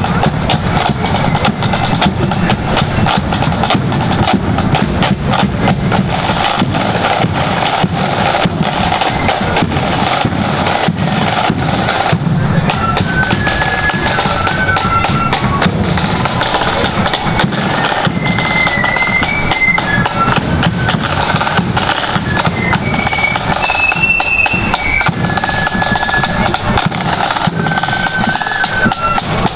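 Marching flute band playing: snare drums rattling and a bass drum beating throughout, with the flutes' melody coming in clearly after about twelve seconds.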